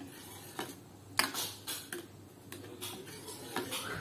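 Irregular light clicks and knocks of a ladle against a wok while the simmering soup is stirred.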